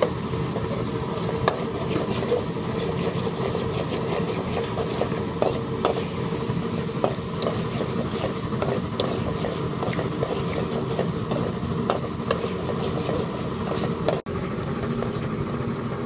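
Metal slotted spatula stirring thick curry in an aluminium kadai, with frequent light clicks and scrapes against the pan over a steady sizzle and low hum. The clicks thin out after a brief dropout near the end.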